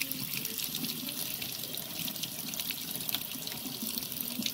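Hot water running steadily from a kitchen faucet and splashing onto a small metal thermal regulator in a stainless-steel sink.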